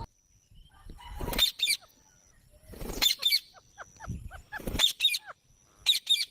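Parrot calling: four harsh screeches about one and a half seconds apart, with a run of short falling chirps between them.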